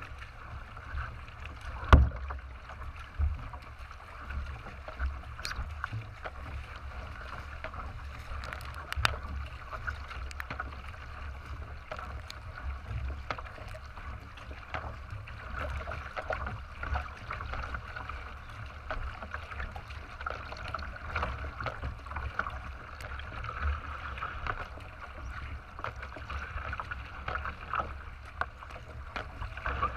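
Water rushing and splashing against the hull of a racing kayak under way, with paddle strokes and an uneven low rumble at the bow. A sharp knock comes about two seconds in.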